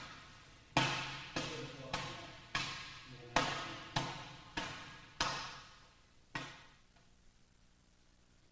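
Open-hand Iron Palm strikes on a filled training bag resting on a cinder block, about nine slaps in an even rhythm, each with a short ringing decay, then they stop. The strikes come at an angle that makes the bag roll toward the striker rather than straight down.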